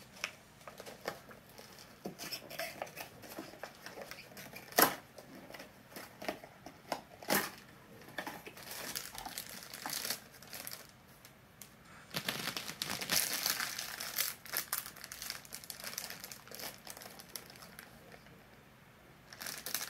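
Foil blind bag and cardboard packaging of a Funko Mystery Mini crinkling and crackling as it is handled and pulled at to open it. It comes in scattered sharp crackles, with a denser stretch of rustling about twelve seconds in.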